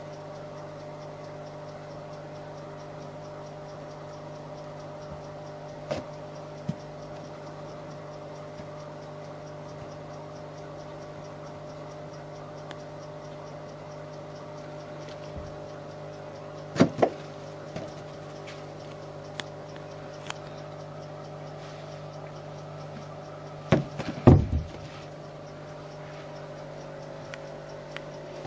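Scattered sharp knocks and thumps of a kitten batting a rubber balloon against the wall, door and floor: a few single knocks, a quick double knock past the middle and a short cluster later on. A steady electrical hum runs underneath throughout.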